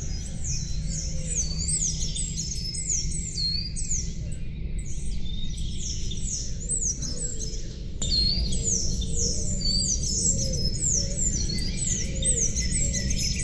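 Songbirds chirping continuously, many quick high notes sliding downward in rapid succession, over a steady low rumble.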